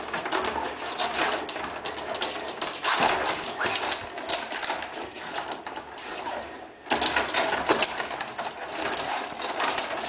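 Rod table hockey game in fast play: a rapid, continuous clatter of clicks and knocks as the control rods are twisted and pushed and the plastic players hit the puck. The clatter eases briefly about two-thirds of the way through, then starts up again sharply.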